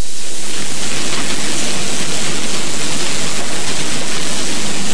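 Loud, steady hiss of static-like noise that starts abruptly.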